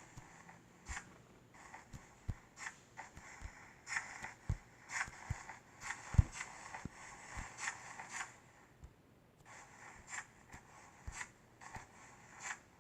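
Slime being handled by hand: repeated sticky crackles and small clicking pops in quick clusters, with a few soft low thuds.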